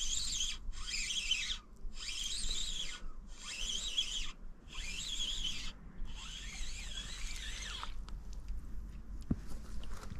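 A Shimano Vanquish 2000 spinning reel cranked in short bursts of about a second with brief pauses, about six times, its whirr rising and falling in pitch with each turn. This is a stop-and-go retrieve of a micro jig. The cranking stops a couple of seconds before the end.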